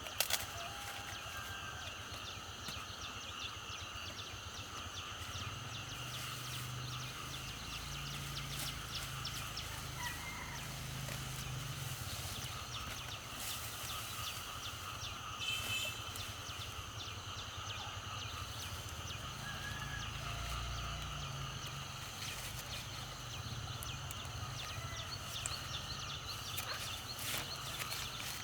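Rural outdoor ambience of animal sounds: a steady high-pitched drone of several held tones, with scattered short chirps.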